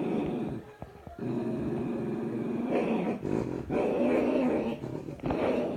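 Dog growling in long, rough stretches, with short breaks about a second in and around three seconds in.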